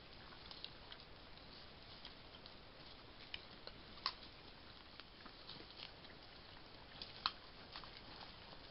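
Wild boars foraging in dry grass and leaf litter: scattered faint crackles and sharp clicks, the loudest snaps about four and seven seconds in, over the steady hiss of a trail camera's microphone.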